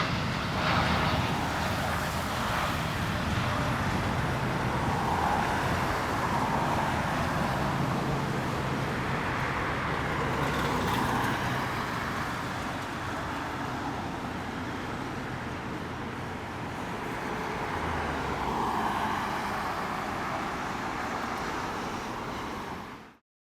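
Steady distant engine rumble that swells and fades slowly, then cuts off suddenly near the end.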